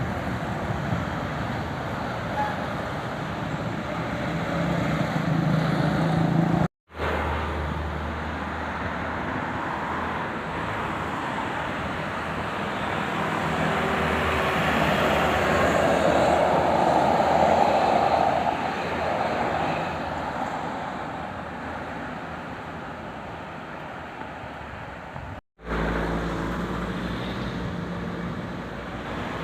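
Road traffic noise with a vehicle passing close by, swelling to its loudest a little past the middle and then fading. The sound cuts out for an instant twice.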